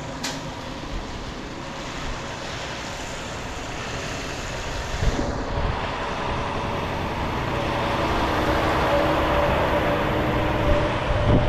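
Road traffic passing on a wet street: tyres hissing on the rain-soaked road, with a truck's engine tone coming in about halfway and growing louder toward the end.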